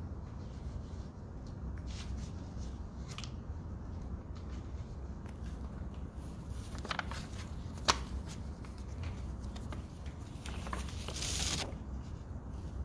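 Pages of a paper prayer booklet being handled and turned: a few short rustles and a sharp click, then a longer rustle lasting about a second near the end, over a low steady hum.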